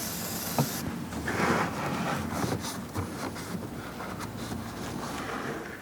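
Soft rubbing and rustling from a rag wiping spilled oil off the underside of the engine, with a brief hiss at the very start and a small click.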